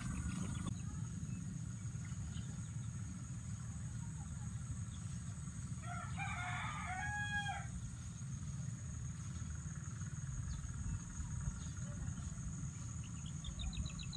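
A rooster crowing once, about six seconds in, a call of roughly two seconds ending on a held note. Under it, a steady low rumble of wind on the microphone.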